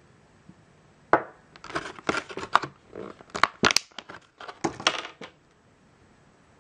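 Thin clear plastic blister tray crackling and clicking as an AA battery is worked out of it. It is a run of sharp crackles starting about a second in, with a short break near the end.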